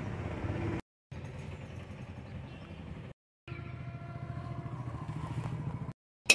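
A vehicle engine running: a steady low rumble that drops out briefly twice.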